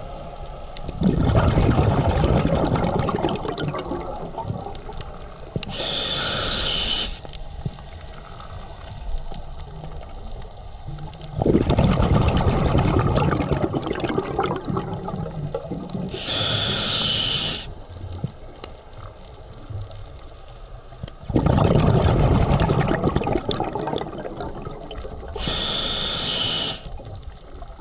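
Scuba diver breathing through a regulator underwater. There are three slow breaths about ten seconds apart: each is a short hiss from the demand valve on the inhale, and a long rumbling rush of exhaled bubbles that fades out.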